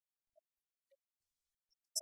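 Near silence, broken by a few faint short clicks and one sharper click right at the end.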